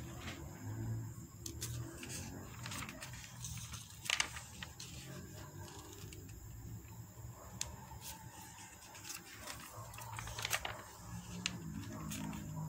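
Glossy paper catalogue pages being handled and turned, with crisp rustles and sharp clicks scattered through, the strongest about four seconds in, over a low uneven background hum.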